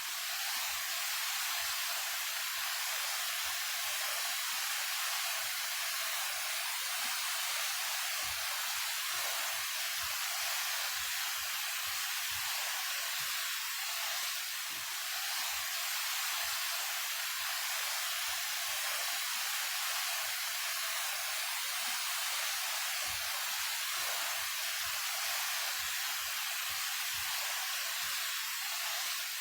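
A 28 m high mountain waterfall falling steadily: a constant rushing hiss of water, strong in the upper range and with little low rumble.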